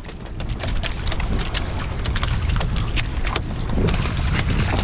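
Wind blowing across the microphone and waves sloshing against a small boat's hull, a loud steady rush with a low rumble, dotted with many sharp little ticks and clicks.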